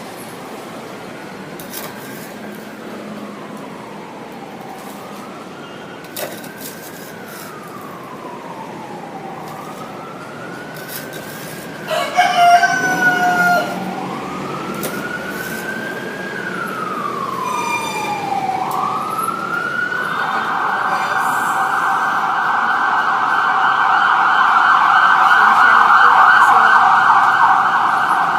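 Emergency vehicle siren in a slow rising-and-falling wail, switching about twenty seconds in to a fast yelp that grows louder as it approaches. A rooster crows loudly about twelve seconds in.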